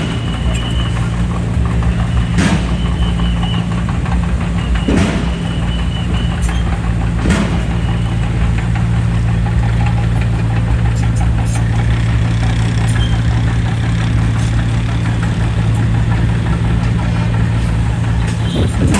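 Komatsu D20P bulldozer's diesel engine running steadily, with three sharp clanks a little over two seconds apart. A high squeak comes and goes through the first six seconds.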